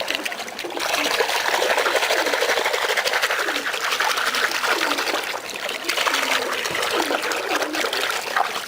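Pigeons bathing in a tub of water, splashing in a steady, dense patter.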